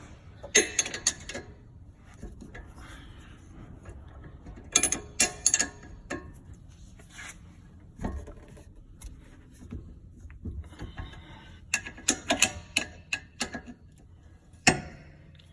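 A 14 mm spanner working the S14's rear brake caliper bolts: metal-on-metal clicking and clinking in several short bursts with pauses between, and one sharp click near the end.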